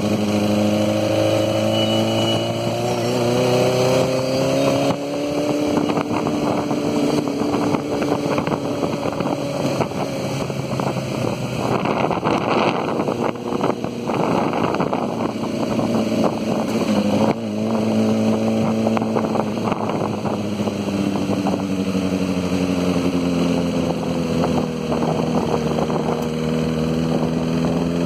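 An engine running. Its tone sinks in pitch over the first few seconds and climbs again near the end, with a stretch of rushing road-and-wind noise in between.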